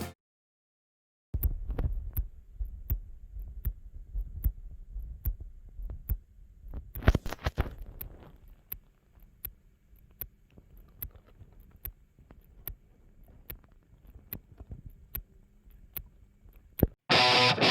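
St Jude mechanical aortic valve heard through the chest wall: crisp ticks in a steady rhythm with each heartbeat, over a muffled low heartbeat thump. There is a brief louder rustle about seven seconds in, and guitar music comes back in at the very end.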